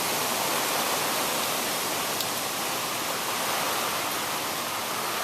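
Heavy storm rain falling steadily, an even, continuous hiss with a single faint tick about two seconds in.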